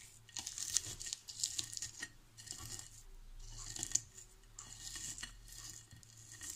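Fried dried red chillies being crushed and rubbed with salt under the fingertips on a ceramic plate: dry crackling and gritty scraping in irregular bursts, with light clicks of fingers and chilli against the plate.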